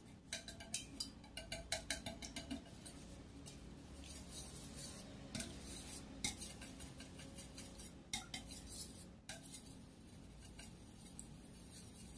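Wire whisk beating eggs and milk in a stainless steel bowl, its wires clicking rapidly against the metal. The clicking is densest in the first few seconds, then thins to scattered ticks.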